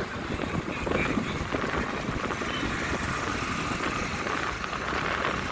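Steady road and traffic noise heard from a moving vehicle, with wind buffeting the microphone.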